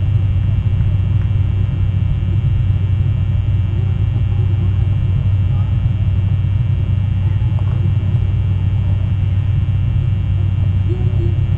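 Steady low rumble with a constant low hum, the background noise of an outdoor nest-camera microphone, with a few faint, brief chirps above it.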